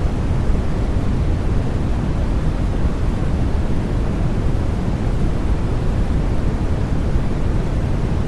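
Steady white-noise track for helping a baby sleep, an even, unchanging hush weighted toward the deep low end with little high hiss.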